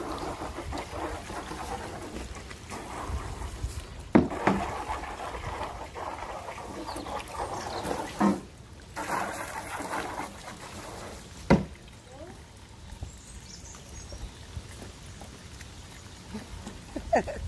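Saluki puppy pawing and splashing in a muddy puddle: water sloshing and trickling, with a few sharp knocks about four, eight and eleven and a half seconds in.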